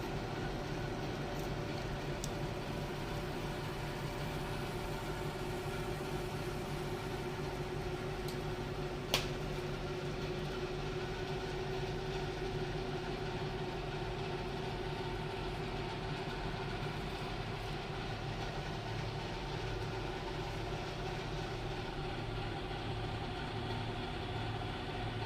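Steady hum from the stove while an empty tawa heats, with a few constant tones over a low rumble and one sharp click about nine seconds in.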